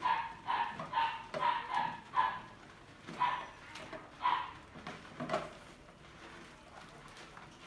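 A run of about eight short, pitched animal calls, unevenly spaced over the first five seconds or so, then quiet background.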